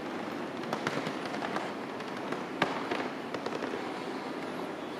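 Room ambience of a large restaurant dining hall: a steady background hiss with scattered sharp clicks, the loudest about two and a half seconds in.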